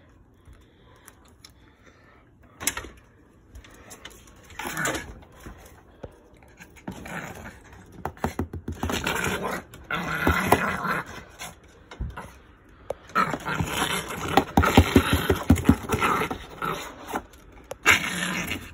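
Yorkshire terrier attacking a large cardboard box, scraping and biting at the cardboard in repeated bouts. The bouts begin after a couple of quiet seconds and are longest and loudest about two-thirds of the way in.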